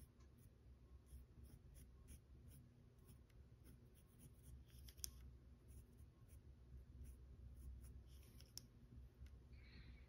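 Faint pencil strokes scratching on paper, with a sharp tick about halfway through and another near the end, over a low steady hum.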